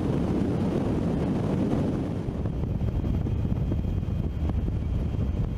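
Wind tunnel running: a steady low rumble of rushing air.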